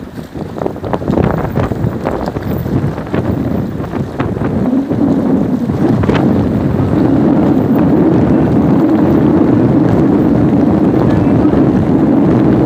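Boat motor running steadily, with wind buffeting the microphone. Scattered knocks fill the first four seconds, and the motor grows louder and steadier about five seconds in.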